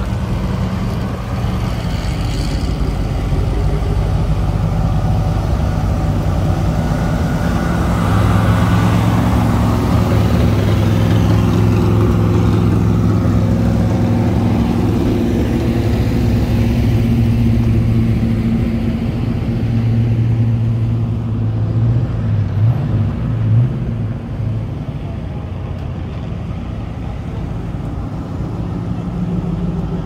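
Car engines running as cars roll slowly past one after another, a steady low drone that is loudest through the middle. A little past two-thirds through, the engine pitch wavers briefly, like a few light throttle blips.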